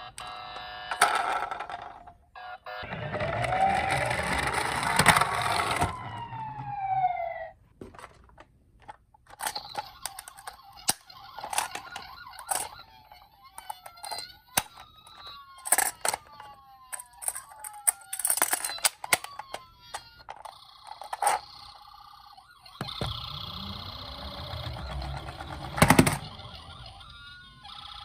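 Electronic siren sounds from toy police car and ambulance minicars, several different wailing and falling siren patterns overlapping, with many sharp clicks and knocks of the plastic toys and stretches of low rumbling.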